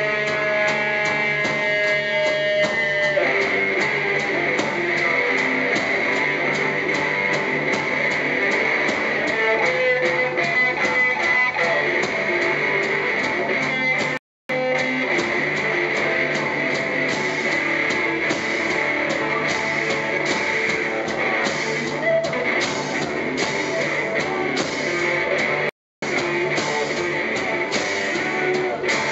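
Live rock band playing an instrumental passage: electric guitar over drums. The sound cuts out completely for a split second twice, about halfway through and near the end.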